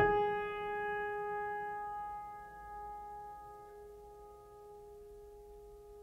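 Ambient background music: a single note is struck at the start and rings on, fading slowly.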